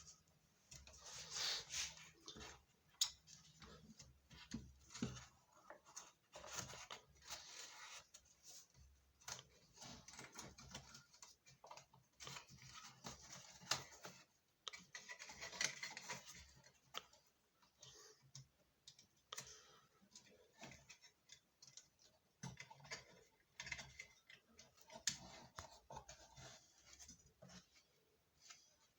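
Faint, scattered small clicks, scratches and rubbing: hands pressing a self-adhesive LED strip into place along a car headlight.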